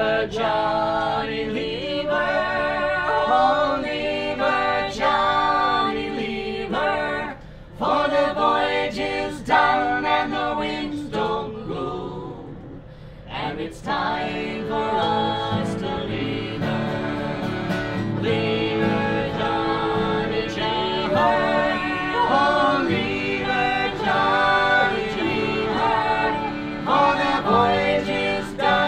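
Small acoustic folk band playing live, with accordion, acoustic guitar and fiddle and men singing along. There is a brief lull about twelve seconds in.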